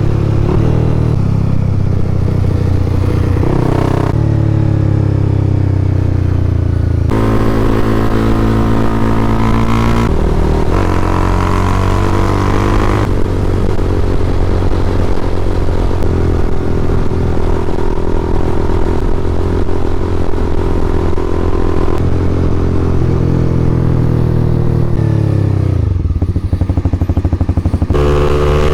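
Honda CBR300R's single-cylinder engine under way, holding steady revs between several shifts in pitch. About 25 seconds in the revs fall to a slow chug, then pick up again near the end.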